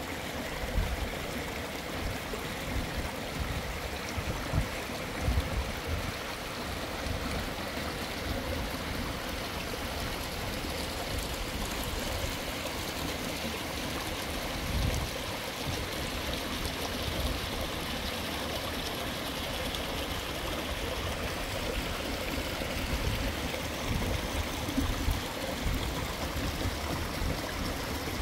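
Shallow stream running and trickling over stones, a steady rushing, with a few short low thumps now and then.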